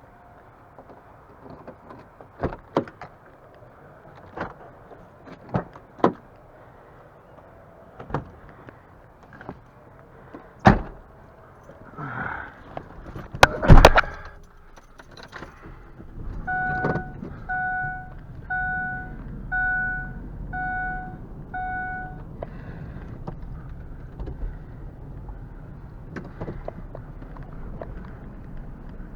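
Knocks and clicks of someone climbing into a small pickup truck, with a loud door slam about 14 seconds in. Then six evenly spaced chime beeps, about one a second, sound as the engine starts and idles with a low rumble.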